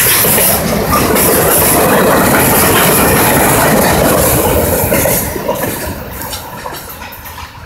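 Freight train cars rolling past on the rails, loud and steady, then fading from about five seconds in as the last car goes by and the train moves away.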